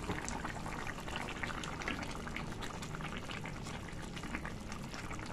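Snapper curry simmering in a pan on a lowered flame, bubbling steadily with many small pops.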